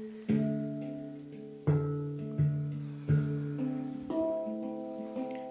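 Calm instrumental background music on a plucked string instrument: slow single notes and chords, each struck and left to ring and fade before the next.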